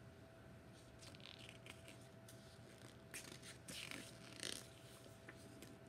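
Faint rustling and soft scraping of a paperback book's page as it is handled and turned, a few brief papery brushes.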